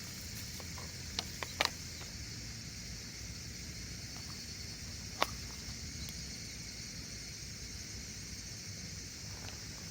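Steady outdoor background hiss with a few light clicks and taps: a quick cluster of three a little over a second in, and one sharper tap about five seconds in.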